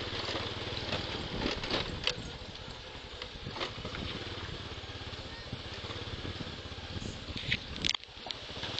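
Suzuki motor scooter running along a rough dirt road: a steady engine and road rumble with scattered knocks and rattles. The sound dips briefly about eight seconds in, with a sharp click.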